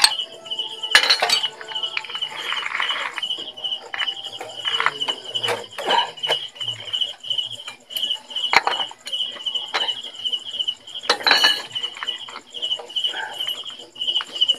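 Metal tool clinking and scraping against the GY6 scooter's CVT pulleys as the drive belt is levered into place, in scattered knocks. An insect chirps at a steady rhythm throughout.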